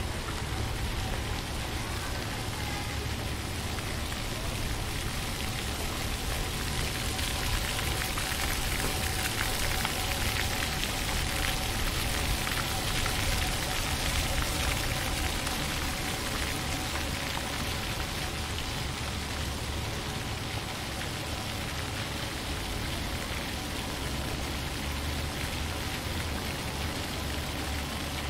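Steady rain falling, growing a little heavier in the middle, with a low rumble underneath.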